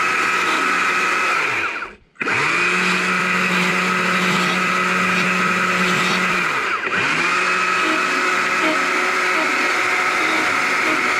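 Small chainsaw running at high revs as the nose of its bar cleans up the edges of a small wooden heart carving. The sound cuts out for an instant about two seconds in, and the revs dip and climb back about seven seconds in.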